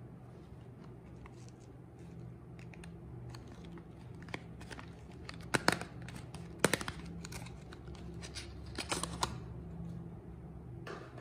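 A small cardboard soap box, Johnson's baby soap, being handled and opened by hand: scattered crinkles, rustles and sharp clicks of the carton and its flaps, with the loudest clicks around the middle and a quick flurry later on as the bar is slid out.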